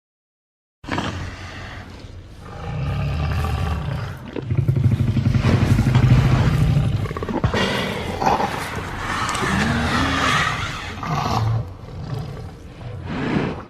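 Tyrannosaurus rex roar sound effect: a deep growl starts suddenly about a second in and swells into a long roar, loudest about five to seven seconds in. Further rumbling growls follow, and a last short roar comes just before it cuts off.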